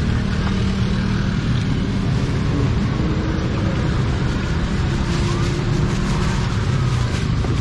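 Steady low rumble of motorbike and car engines in passing street traffic, with a few faint clicks in the second half.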